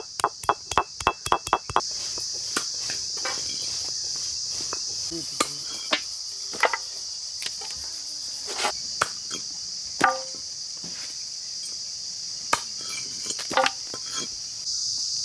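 Knife chopping on a cutting block: a quick run of about eight chops in the first two seconds, then scattered single chops. A steady chorus of crickets runs underneath.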